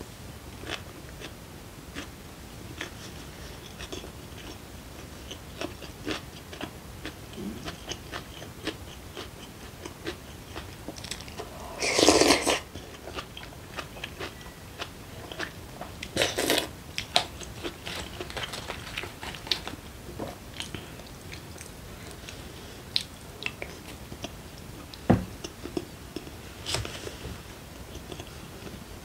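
Close-up eating sounds: a person chewing and biting through mouthfuls of rice, fermented soybean stew and garlic, with many small mouth clicks and a couple of louder noisy bursts around the middle.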